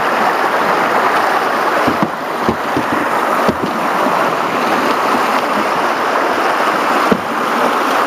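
Rapids churning and splashing along a canoe's side in a steady, loud rush, with a few sharp knocks about two, three and a half, and seven seconds in.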